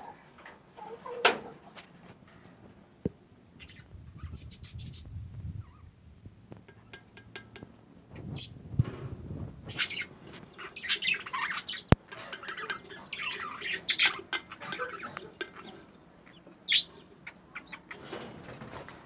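Several birds chirping and squawking in short irregular calls, with rustling and a couple of sharp clicks.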